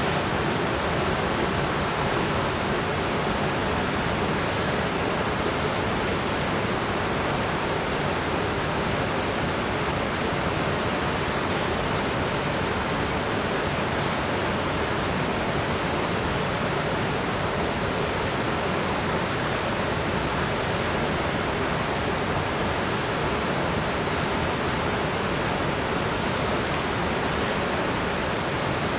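Steady rush of fast-flowing creek water, an even noise that does not change.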